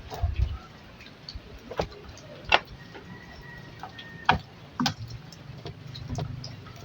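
Scattered sharp clicks and knocks, four of them louder, from handling the parts of an opened LED TV while taking it apart to lift out the screen panel.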